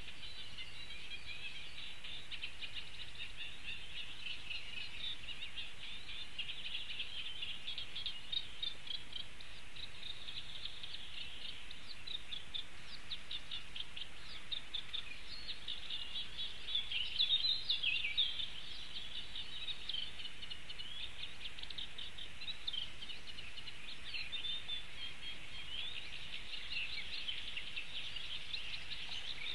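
Small birds singing continuously in rapid, high-pitched chirps and trills, with a louder flurry about seventeen seconds in.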